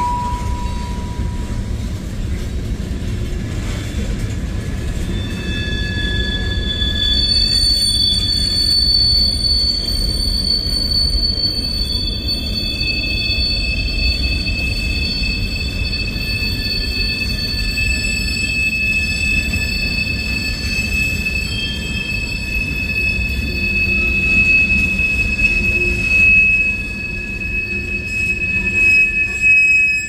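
Freight train's tank cars rolling past with a steady rumble of wheels on rail. About five seconds in, high-pitched wheel squeal sets in as several shrill steady tones that hold for the rest of the passage.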